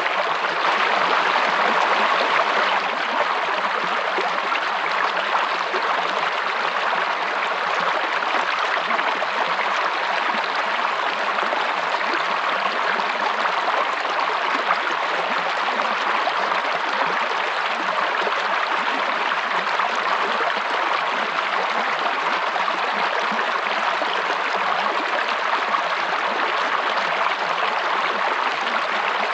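A stream of running water flowing steadily, an even rushing sound without pause.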